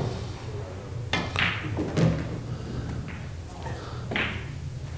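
Pool balls knocking together on the table in three sharp clacks, about a second in, at two seconds and near four seconds, over a steady low hum of the hall.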